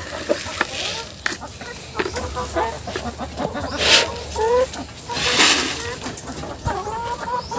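Chickens clucking, many short calls overlapping, with two short bursts of rustling noise about four and five and a half seconds in.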